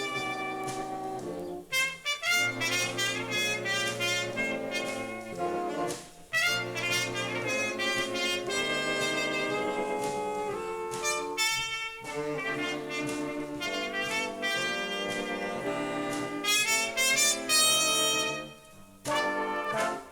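Junior high school stage band, a big-band jazz ensemble, playing: trumpets, trombones and saxophones in sustained ensemble chords, with brief breaks between phrases.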